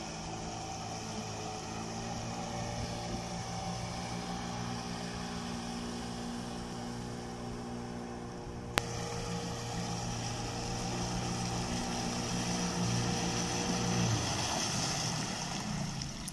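Mercury 8 hp outboard motor running steadily under way on a small 8-foot boat, over a hiss of water and wind. There is one sharp click about nine seconds in, and the engine note eases off and drops about two seconds before the end.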